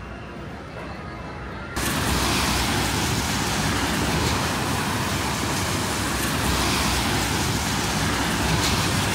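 Steady city street traffic noise, cutting in suddenly and loudly about two seconds in after quieter ambience.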